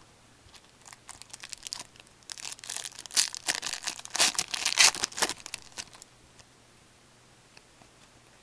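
A foil hockey card pack wrapper being torn open and crinkled by hand, a few seconds of crackling tearing that is loudest in the middle and stops about six seconds in.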